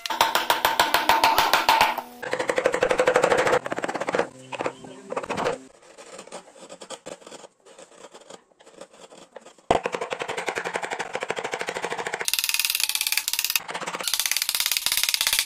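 Woodcarving gouges and chisels cutting a wooden door panel: runs of rapid knocks, with a quiet stretch in the middle and a short hissing scrape near the end.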